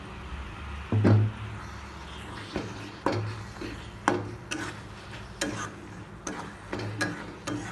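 Metal spatula stirring thick masala and tomatoes in a metal kadai, scraping and tapping the pan in irregular clicks about every half second, with one louder knock about a second in.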